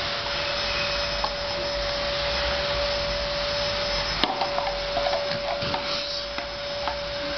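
A steady rushing hiss with a constant mid-pitched hum runs throughout. From about four seconds in come a sharp click and then small scattered clicks and taps of toy stacking blocks being knocked together and set down on the mat.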